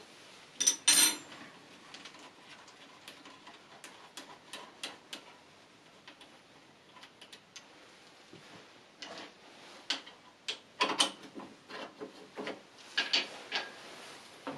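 Steel lathe parts and a wrench being handled on a lathe cross slide while the solid toolpost is swapped back for the original cross slide: scattered metal clicks and clanks, with a louder clatter about a second in and again in the second half.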